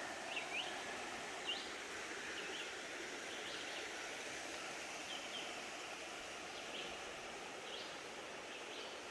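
Forest ambience: a steady even hiss with scattered short high chirps throughout.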